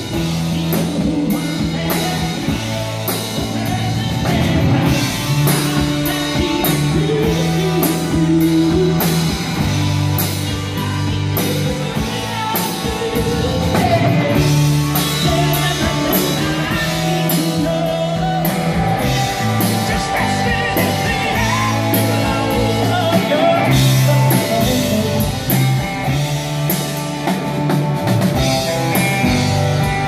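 Rock band playing live: electric bass, electric guitar and drum kit keeping a steady beat, with a male lead vocal.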